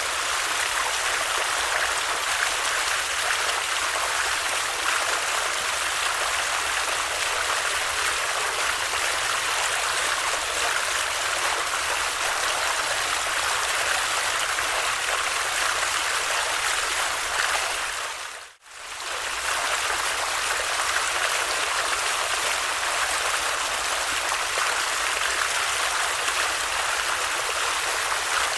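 Running water of a stream, a steady even flow with no other sounds. About two-thirds of the way through, it dips away to near silence for under a second, then comes straight back.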